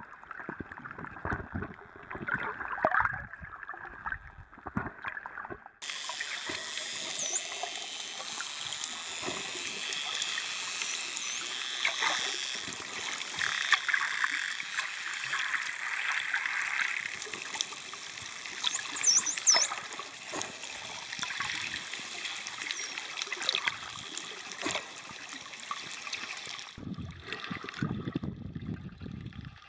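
Wild dolphins heard underwater: thin, high whistles that rise and fall, several together near the middle, over many short clicks and the rush of water and bubbles. The sound is duller for the first few seconds, then changes abruptly.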